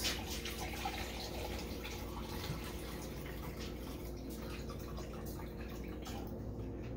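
Cloudy lactic acid bacteria serum poured slowly from a jar through a fine mesh strainer, trickling and dripping steadily into a glass measuring cup as the culture is strained.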